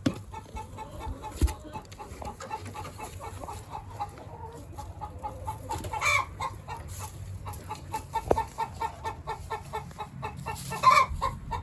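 Blue Laced Red Wyandotte chickens clucking in a steady run of short notes, with louder squawks about six seconds in and again near the end. A couple of dull thumps are also heard.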